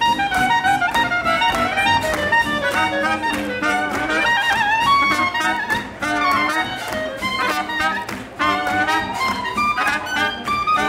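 Small hot-jazz horn section of clarinet, two saxophones and trumpet playing a lively swing tune together over a steady beat.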